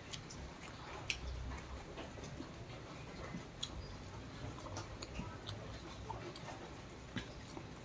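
Faint handling sounds of fingers mixing biryani rice and gravy on a plate, with a few light, scattered clicks.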